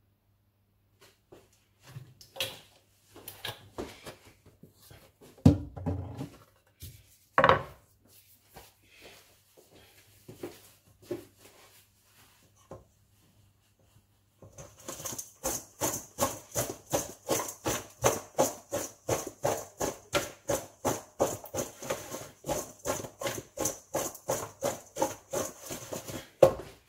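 Oiled chopped vegetables being tossed in a stainless steel mixing bowl: scattered knocks and scrapes at first with one heavy thud, then about halfway through a fast, even rattle, roughly three or four shakes a second, as the bowl is shaken to coat them.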